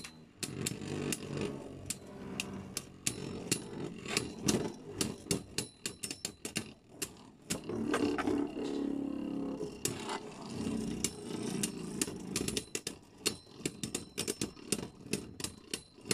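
Two Beyblade Burst spinning tops, one of them Wizard Fafnir, whirring on a clear plastic stadium floor, with frequent irregular clicks and clacks as they strike each other and the stadium wall during a battle.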